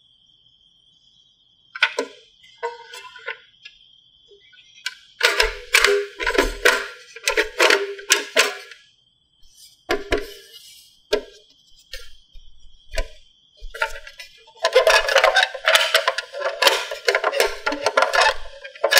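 Battery-operated plastic toy vending machine being worked by hand: its buttons click as they are pressed, and its small speaker plays short electronic tunes and sound effects in bursts, the longest near the end.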